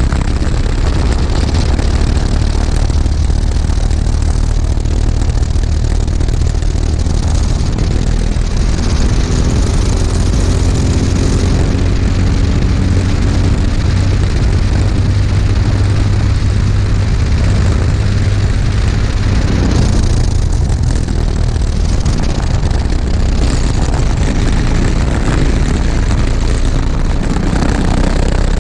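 Racing kart engine running hard at race pace, heard from a camera mounted on the kart, its pitch rising and falling as the kart slows for corners and accelerates out of them.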